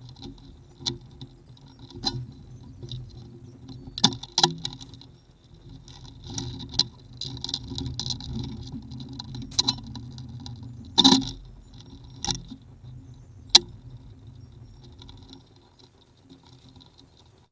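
Tools and small metal parts being handled: scattered metallic clicks and knocks over a low steady hum, the loudest knock about eleven seconds in.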